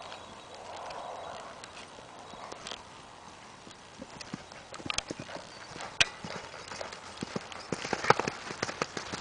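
Hoofbeats of a horse cantering on soft dirt, a quick uneven rhythm of thuds. They become clear about four seconds in and are loudest near the end, as the horse passes close.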